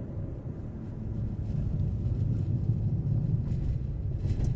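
Steady low rumble of a car's tyres on asphalt and its engine, heard from inside the cabin while driving on a highway, growing a little louder about a second in.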